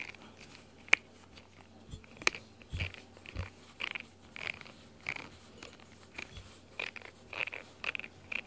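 Cat chewing and biting on the bristles of a rubber grooming brush: an uneven run of short, crunchy gnawing sounds, with two sharp clicks in the first few seconds.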